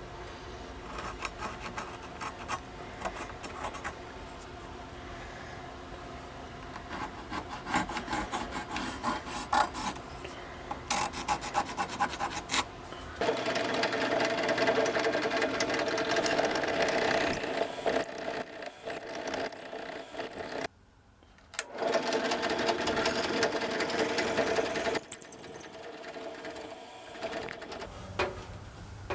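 A pencil scratching on a wooden handle scale, marking it through the holes in a machete tang. Partway through, a drill press starts and runs steadily, boring holes through the wooden scale, with a one-second break in the middle.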